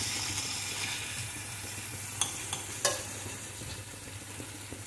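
Halved tomatoes and garlic cloves sizzling in hot oil in a stainless steel pan, the sizzle slowly quietening, while a steel spoon turns them over and clinks against the pan twice.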